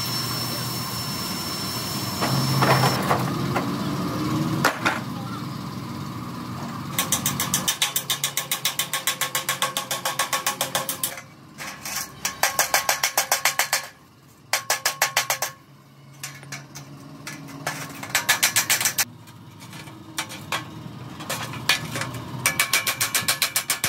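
Bursts of rapid, evenly spaced metal-on-metal hammering from a power tool on the van's bodywork or parts, each burst lasting one to four seconds and starting about seven seconds in.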